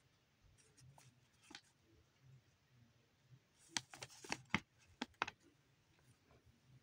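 A paper instruction sheet rustling as it is handled, then crinkling with a short run of crisp crackles about four seconds in as it is turned over.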